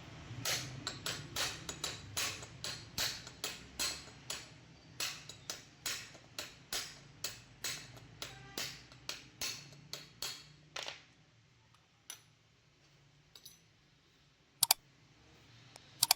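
Steady series of light hammer taps on metal, a little over two a second, each ringing briefly; they stop about eleven seconds in. Two sharp metallic clinks follow near the end.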